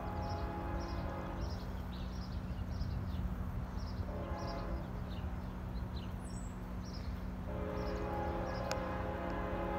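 Horn of an approaching freight train's locomotive, heard from a distance, blown in separate blasts. One blast fades out about a second and a half in, a short one comes around four seconds, and a long one starts near the end. A steady low rumble lies under it, with birds chirping.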